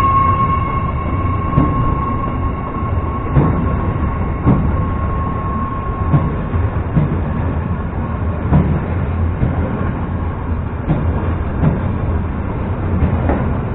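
Empty double-deck car-carrier freight wagons rolling slowly past: a steady low rumble of wheels on rail with irregular knocks. A steady high tone fades away about halfway through.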